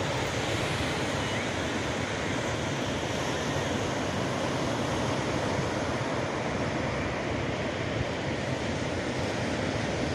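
Steady rush of ocean surf breaking on the beach, mixed with wind and low wind rumble on the microphone.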